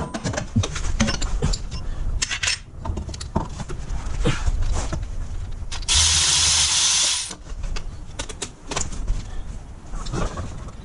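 Clinks and knocks of hand tools and metal parts, with a power tool run once for about a second and a half about two-thirds of the way in.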